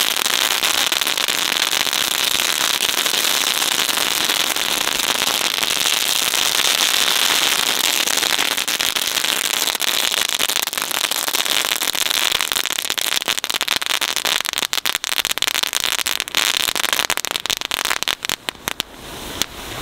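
A long strip of Category 1 crackling firecracker ribbon going off on concrete, a dense, unbroken rapid crackle. After about twelve seconds it thins into scattered single pops that die out just before the end.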